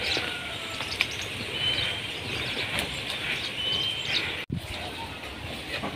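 Outdoor rural ambience in which a bird repeats a short, steady, high whistled note about every second and a half, over a steady hiss with scattered faint clicks. The sound cuts out for an instant about four and a half seconds in.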